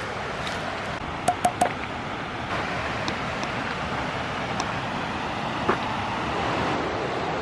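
Steady rushing noise of a waterfall, with three quick sharp clicks about a second and a half in and a single knock near six seconds.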